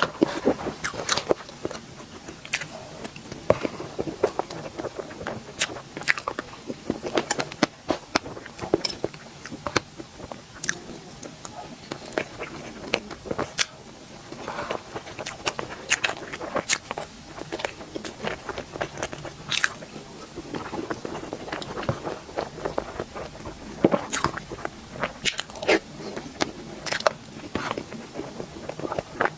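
Close-miked eating of a dessert: repeated crunchy bites and chewing, with many sharp, irregular crackles and mouth clicks.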